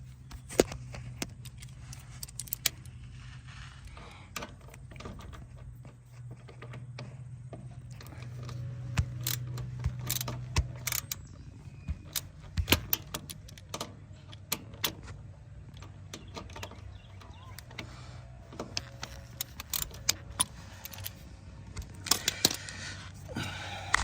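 Irregular metallic clicks and clinks of a 14 mm socket wrench working the hydraulic tank's drain plug loose on a mini excavator, over a low steady hum.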